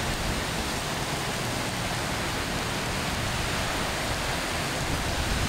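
Heavy rain pouring down onto a wet road, a steady, even hiss.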